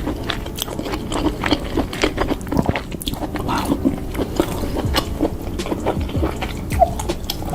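Close-miked chewing of food dipped in cheese sauce: wet mouth smacks and irregular small clicks, continuing without a break.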